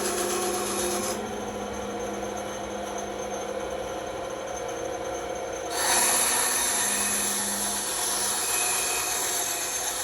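Bandsaw running with its blade cutting through wood, a steady hum under the cutting noise. The cutting gets louder and harsher about six seconds in, then eases slightly.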